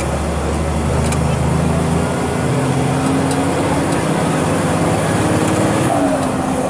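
Volkswagen 17.230 EOD bus engine running under way, with its turbocharger whining. The engine note holds steady, climbs slightly, then drops about six seconds in as the driver eases off or changes gear.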